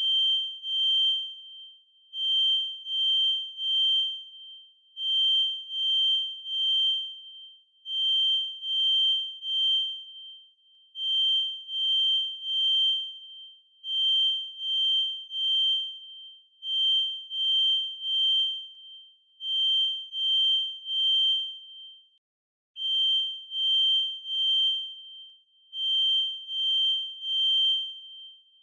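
Kidde FireX i4618AC smoke alarm's piezo horn sounding its full alarm: a loud, high-pitched beep in groups of three with a short pause between groups, the temporal-three evacuation pattern. The sound drops out for a moment partway through.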